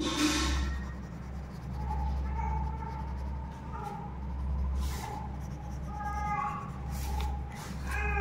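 Yellow colouring pencil scratching across paper in strokes as a cartoon figure is coloured in, over a steady low hum. A few faint pitched calls sound in the background.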